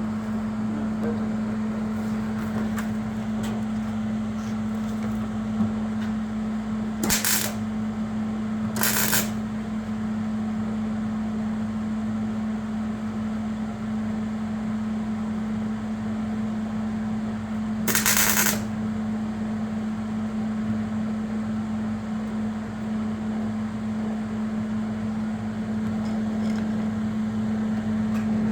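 A steady electrical hum, with three short bursts of hiss about 7, 9 and 18 seconds in.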